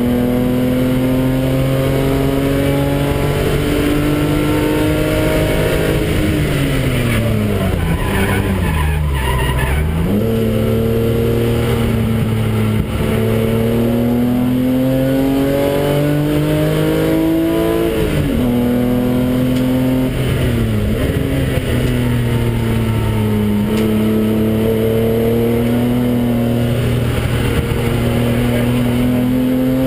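BMW engine heard from inside the cabin under hard acceleration, its pitch climbing through the gears with sudden drops at the gear changes, one of them about 18 seconds in. A few seconds in, the pitch falls away for several seconds as the car slows for a corner, then climbs again.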